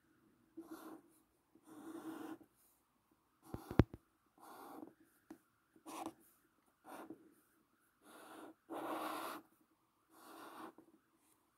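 Green felt-tip marker drawing strokes across a paper card, about nine short strokes with pauses between them as a Chinese character is written. A couple of sharp clicks about four seconds in are the loudest sound.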